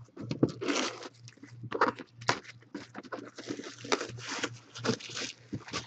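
Packaging being handled and opened: irregular rustling, scraping and sharp clicks, over a steady low electrical hum.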